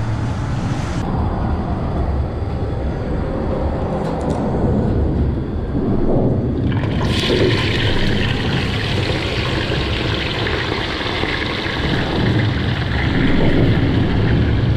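Fish frying in hot oil in a pot on a propane camp stove: the sizzle sets in suddenly about seven seconds in, as the pieces go into the oil, and keeps on steadily. A steady low rumble runs underneath.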